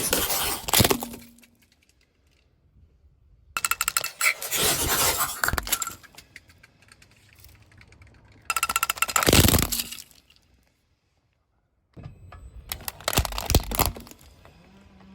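A car's tyre rolling over and crushing brittle objects, a loud cracking and breaking crunch, heard in four separate short clips cut one after another.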